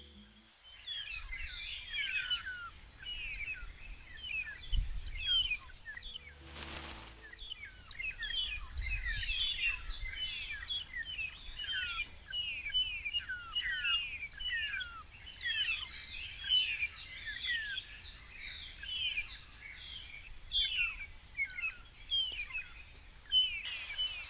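Many birds chirping together in a dense chorus of short, quick, downward-sliding chirps, with a faint steady high tone underneath.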